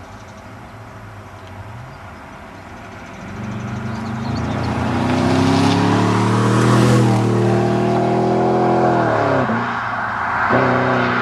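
BMW E38 740i's V8 engine rising in revs for several seconds with its note climbing steadily, loudest around the middle. The pitch drops sharply about nine and a half seconds in, then picks up again a second later.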